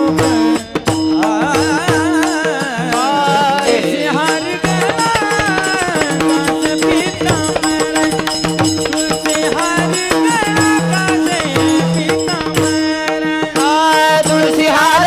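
Marathi devotional bhajan music: an ornamented melody with sliding pitch over a steady drone, with tabla-type drumming and sharp percussion strikes keeping the beat. A louder melodic phrase begins near the end.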